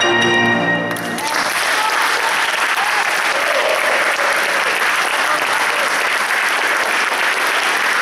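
A grand piano's final chord rings for about a second, then a large audience breaks into steady applause.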